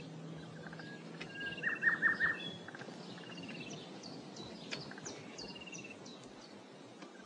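Birds calling over a faint background hiss. A short high trill repeats about every second and a half, with a louder burst of chirping about two seconds in and scattered quick high chirps throughout.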